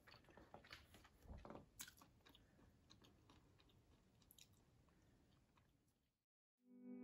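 Faint chewing of a bite of avocado toast, small scattered clicks that fade away, then a moment of dead silence before music starts right at the end.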